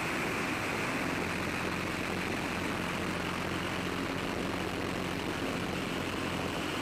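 Van's RV-6A with a turbocharged Subaru engine running steadily, its propeller drone heard under heavy, even wind rush on a wing-mounted camera.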